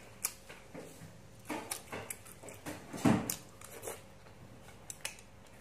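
A person biting and chewing boiled pencil squid: wet, squishy mouth sounds with scattered clicks, the loudest bite about three seconds in.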